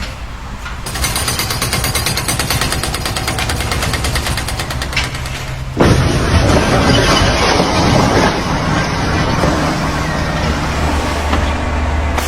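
Loud machinery noise: a fast, even rattle for about five seconds, then an abrupt change to a louder, rougher rumble with a low hum underneath.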